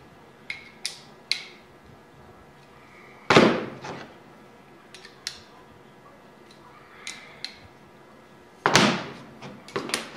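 Steel parts knocking and clinking together as they are handled and set down on a desk. There are two loud clanks, about three seconds in and near the end, with light metallic clicks between.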